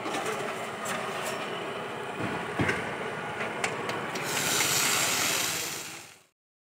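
Food-stall background noise with scattered clicks and clatter, then a louder hiss for about two seconds that fades out to silence.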